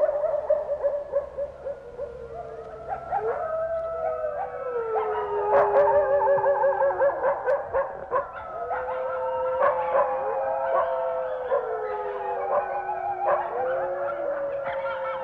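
A group of canids howling together in chorus: several long, overlapping howls that slide slowly in pitch, with a burst of quavering yips in the middle.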